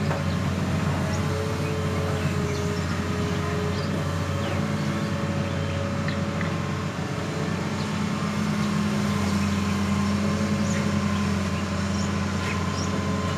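Hitachi Zaxis 200 hydraulic excavator's diesel engine running steadily under load as the machine works its arm and bucket, a continuous low drone that swells slightly partway through.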